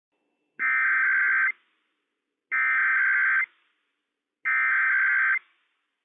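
EAS SAME header sent over NOAA Weather Radio: three identical bursts of two-tone digital data, each just under a second long and about a second apart. They encode the alert as a Required Weekly Test.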